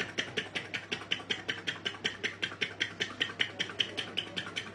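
A man imitating a machine with his mouth: a rapid, even run of sharp clicking strokes, about seven a second, like a motor or engine clattering.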